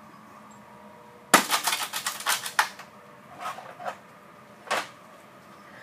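Metal scroll-compressor parts clattering as they are handled: a fast run of sharp metallic clinks about a second in, then a shorter rattle and one last clank near the end.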